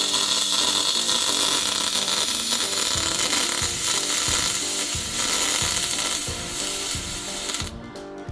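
MIG welding arc on aluminum framing: a steady, loud crackling hiss that cuts off suddenly near the end as the weld is stopped. Background music plays underneath.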